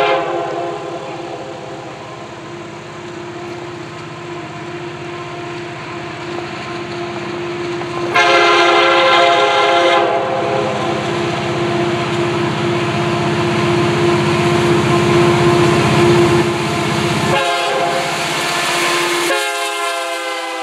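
Union Pacific SD70M diesel locomotive approaching and passing, sounding its multi-chime horn the whole way, with loud blasts at the start, about eight seconds in, and again near the end. Under the horn is the growing rumble of the locomotive and train as they close in.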